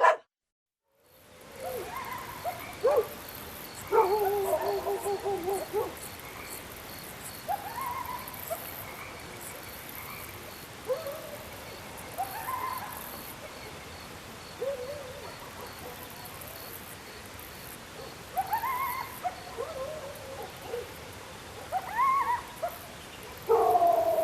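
A dog whining and howling in short rising calls, a dozen or so spread through the stretch, with one longer wavering call about four seconds in and a louder cluster near the end, over a steady hiss.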